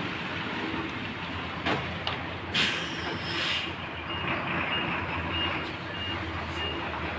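A vehicle's reversing beeper sounding, a faint high beep repeating a little less than twice a second from about four seconds in, over steady outdoor background noise. A brief hiss sounds about a second before the beeping starts.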